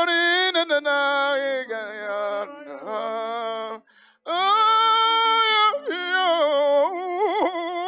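A single voice singing slow, long-held melodic phrases with a wavering vibrato, breaking off briefly about four seconds in.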